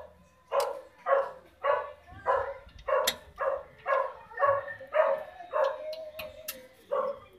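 A dog barking over and over, about two short barks a second, with a few sharp clicks mixed in.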